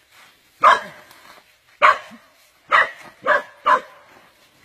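A dog barking: five short, loud barks, the last three coming quicker.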